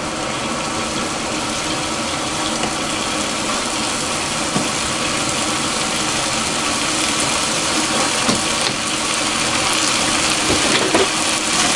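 Cubed potatoes and carrots sizzling in oil in a frying pan as they brown, a steady sizzle that grows slowly louder.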